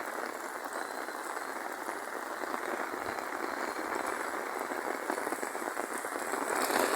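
Heavy rain falling in a steady dense patter, growing a little louder near the end as the downpour thickens.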